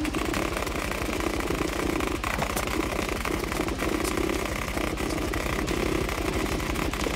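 Nerf Rival Prometheus firing foam balls in a continuous stream, its motors and feed sped up eight times so they run together into a steady buzz with a fast, even pulse.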